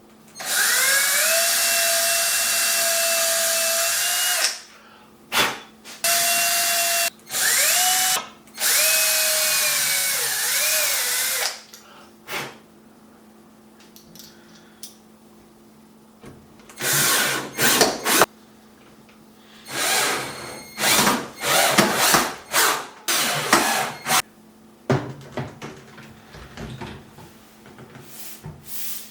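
Electric drill running at full speed in several runs of a few seconds each, with a steady motor whine that sags in pitch near the end of the last run. Later comes a series of short bursts and knocks.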